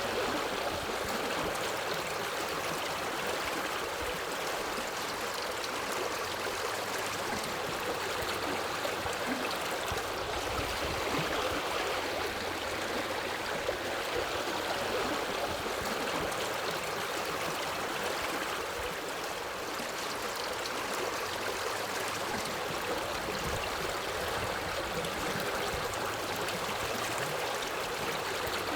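Forest river running, a steady, even rush of flowing water.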